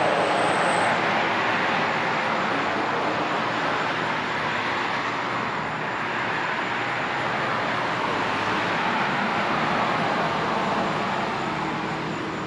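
Road traffic passing: a steady rush of tyres and engines from cars going by, swelling at the start and again near ten seconds.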